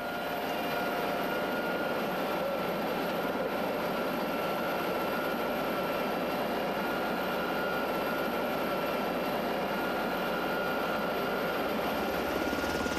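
Helicopter running steadily overhead: a continuous rush of rotor and turbine noise with a thin, steady high whine from the engines.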